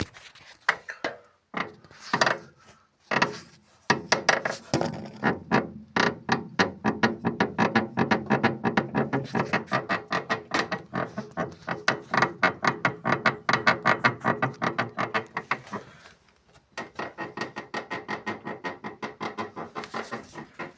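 Front left suspension of a Volkswagen Jetta squeaking: a few separate squeaks, then a fast, even run of several squeaks a second that pauses briefly near the end and starts again.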